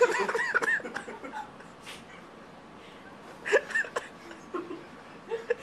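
People laughing and chuckling in short bursts: one during the first second, another about three and a half seconds in, and more near the end, with quieter pauses between.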